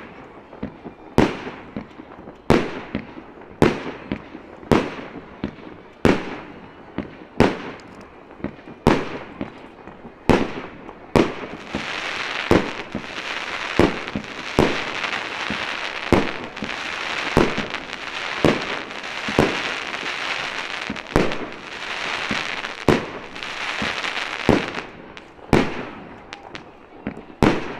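Aerial firework shells bursting close by in a steady series of sharp bangs, about one every second or so. Through the middle stretch a dense crackling hiss fills the gaps between the bangs, typical of crackling-star shells.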